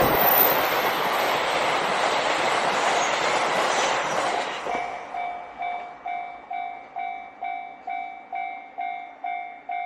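JR Hokkaido KiHa 261 series diesel express train passing over a level crossing with a loud rush of wheel and rail noise that fades after about four and a half seconds. The crossing's electronic warning bell then rings on its own, about two strikes a second.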